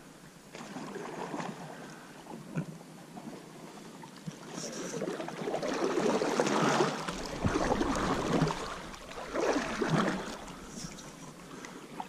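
Canoe paddle strokes in calm water: the splash and swish of the blades grow louder from about halfway through and swell with each stroke.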